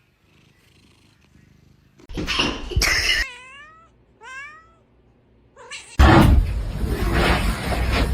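A cat meowing twice, two short calls that each dip and curve in pitch, after a loud rough burst about two seconds in. From about six seconds a loud, continuous noisy sound takes over.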